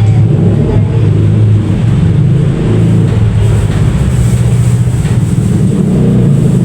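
A motor vehicle's engine running: a loud, steady low rumble.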